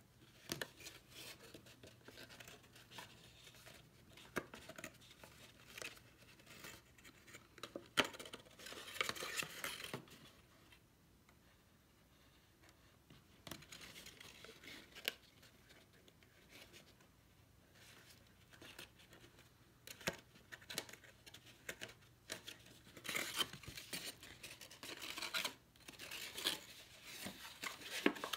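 Stiff card stock paper rustling and scraping as it is handled, folded and pressed together by hand, in short irregular bursts with light taps and a pause of a few seconds midway.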